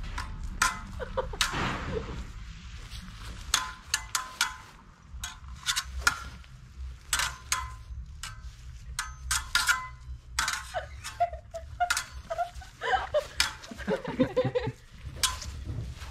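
Fencing swords' metal blades clashing in quick, irregular clinks and clangs as two fencers exchange attacks and parries.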